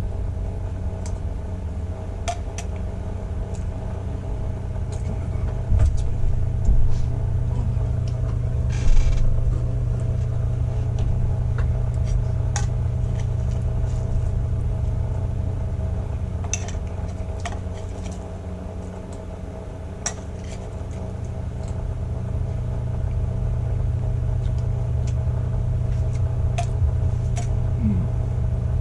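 A steady low rumbling hum, with scattered short clicks of a metal spoon against a stainless steel pot.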